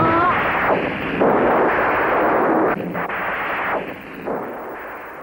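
Loud film sound effect: several noisy crashing blasts one after another, separated by brief breaks and growing fainter toward the end.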